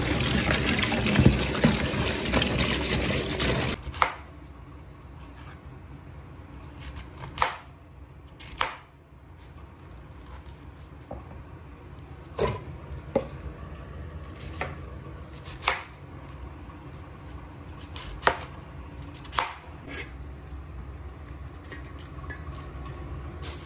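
Tap water running over snow peas in a plastic colander in a steel sink for about the first four seconds, then cut off. After that, scattered single knocks of a knife on a cutting board and against a steel bowl as vegetables are cut, about one every one to three seconds.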